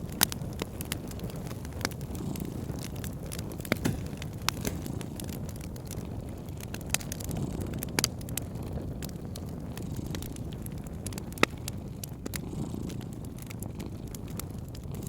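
Wood fire crackling, with irregular sharp pops and snaps over a low steady rumble. A few pops stand out: one just after the start, one about halfway through and one near three-quarters of the way.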